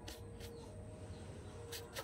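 Quiet room tone with a faint steady hum and a few soft ticks near the end.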